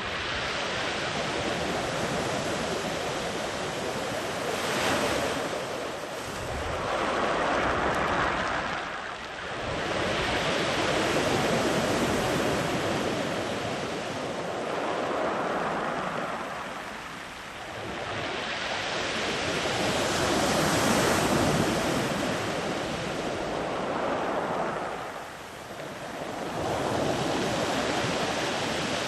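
Sea waves breaking and washing up a beach, a steady rush of surf that rises and falls every few seconds as each wave comes in.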